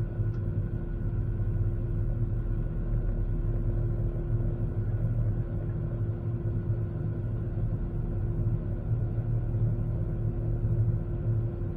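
Airbus A380 cabin noise in flight: a steady low rumble of the engines and airflow, with a constant hum tone over it.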